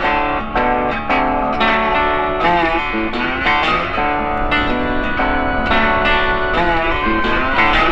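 Background music led by guitar, with notes changing every fraction of a second.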